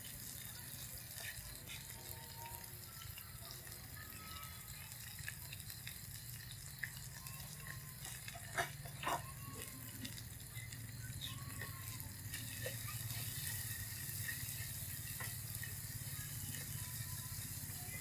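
Fried tofu with minced lemongrass, scallions and garlic sizzling quietly in oil in a frying pan, over a steady low hum, with two short clicks about halfway through.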